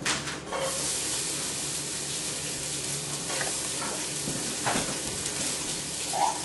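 Hot oil sizzling steadily in a stockpot on a gas burner, left over from browning a pork roast, as the base for cooking onions and tomato paste. A light knock or two sounds partway through.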